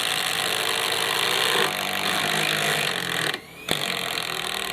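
Cordless impact drivers running flat out, hammering screws into timber. The hammering changes about halfway through, stops briefly, then starts again.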